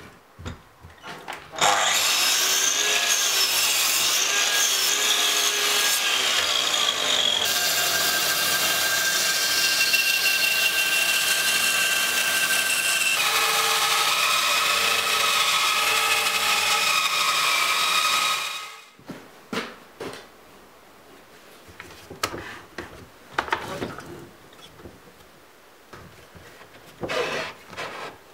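Power saws cutting spalted beech: a sliding mitre saw crosscutting a thick board, then a bandsaw resawing a block, a loud steady run of motor and blade noise that stops about two thirds of the way in. After it come light knocks and rustle of wood being handled.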